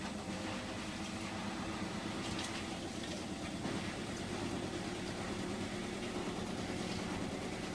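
Hotpoint washing machine running with a steady motor hum in the last two minutes of its programme.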